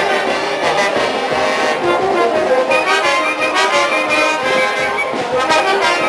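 Band music with brass or reed wind instruments playing a melody of held notes over a steady low beat.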